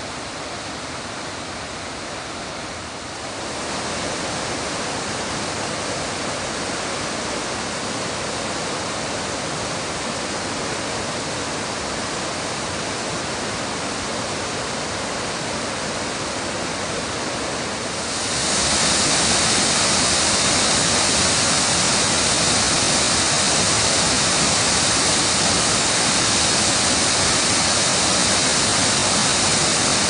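A 46-metre waterfall in spate pouring over rock: a steady, loud rush of water. It steps louder about three seconds in and again just past halfway, where the hiss turns brighter and harsher as the falling water comes closer.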